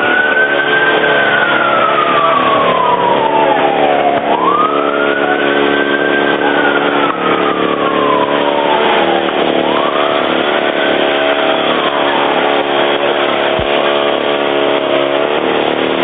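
Fire engine siren wailing over a steady engine hum: three long wails, each rising quickly and falling slowly, the last dying away about three quarters of the way through.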